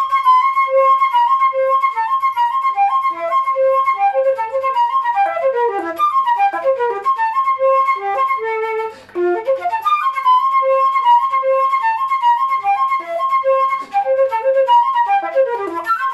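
Jupiter JFL700 silver concert flute played in a fast passage of short notes: a high note keeps coming back between lower notes, with several quick downward runs. The playing breaks off briefly twice, about halfway and near the end.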